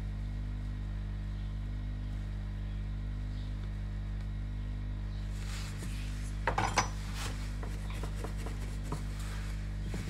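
Steady electrical hum, with a short clatter of light clicks and scrapes about six and a half seconds in and a single tick near the nine-second mark, from small tools being handled on a workbench.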